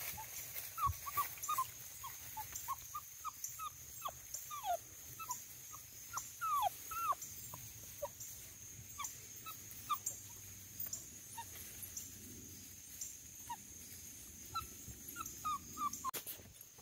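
Basset hound puppy whimpering in a long string of short, high whines, many of them sliding down in pitch. They come thick and fast in the first half, thin out, then bunch up again near the end.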